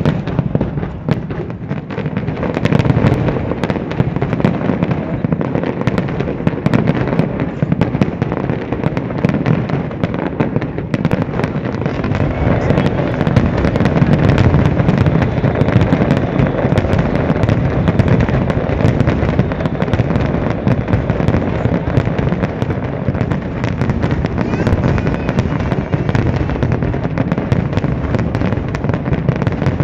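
Aerial fireworks display: a rapid, unbroken run of shell bursts, many bangs a second overlapping with crackle.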